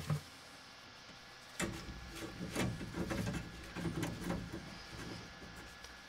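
A soft thump, then about four seconds of irregular knocks, scrapes and rustles as a gloved hand works around copper pipe and a brass push-fit tee on PEX pipe.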